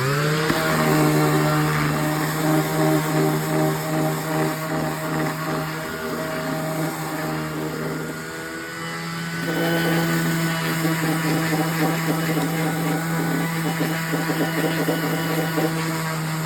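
A small electric motor spins up with a quick rising whine, then runs at a steady pitch with a busy, shifting overtone. The work load eases briefly about halfway through, then picks up again.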